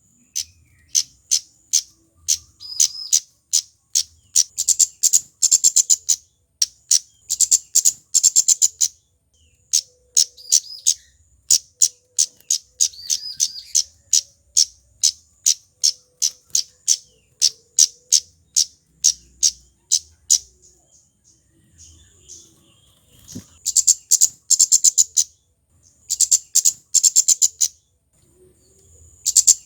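Male kemade flowerpecker singing: rapid runs of sharp, very high ticking notes, several a second, broken by short pauses and a longer lull about twenty seconds in.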